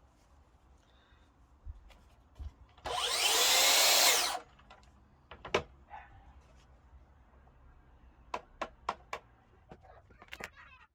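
Makita DSP600 plunge saw's motor run briefly, about a second and a half, its pitch sweeping as it spins up and winds down, followed by several sharp clicks and knocks of the saw and parts being handled.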